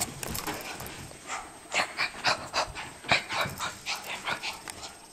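A dog panting in quick, uneven breaths, a few puffs a second, while it thrashes about excitedly.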